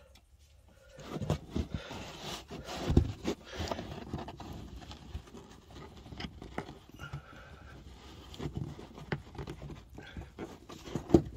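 Handling noise of a car boot's carpeted trim panel being refitted: rustling, with scattered knocks and clicks as plastic push-in 'Christmas tree' clips are pressed into their holes, starting about a second in.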